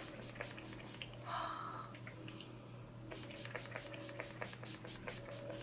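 Pump-action mist bottle of face prep spray spritzed in a quick run of short hissing puffs, about six a second. The puffs pause for about two seconds, then start again in another quick run.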